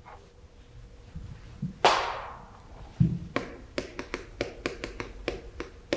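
Chalk writing on a blackboard: a run of short, sharp chalk taps and strokes, about four or five a second, starting about three seconds in. A single louder scrape comes just before, about two seconds in.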